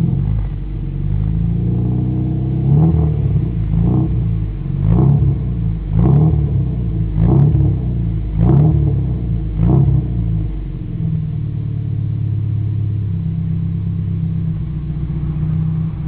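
Car engine idling, then revved in seven short throttle blips about once a second through its exhaust, each rising and falling back, before settling again to a steady idle.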